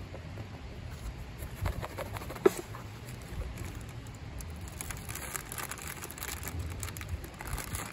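Crinkling and rustling of a snack packet being handled and opened, densest in the last few seconds. A few clicks come before it, with one sharp knock about two and a half seconds in.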